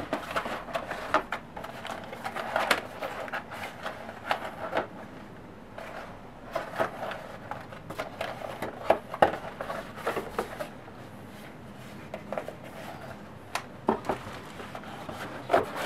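Cardboard laptop box and its packaging being handled: irregular rustling and scraping with light knocks and clicks, the sharpest about halfway through.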